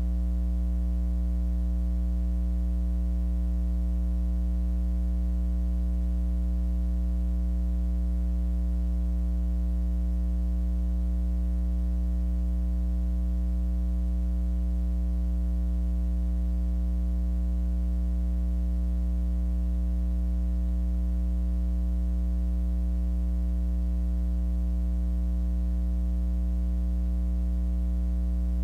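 Steady electrical mains hum with a stack of even overtones at a constant level, and no other sound over it.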